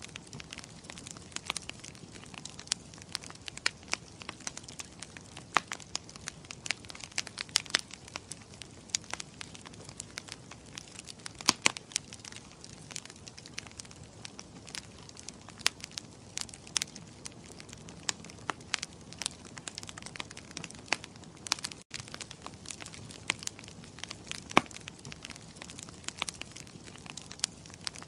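Wood fire crackling in a fireplace: frequent irregular sharp pops and snaps over a soft steady hiss, with a split-second break about 22 seconds in.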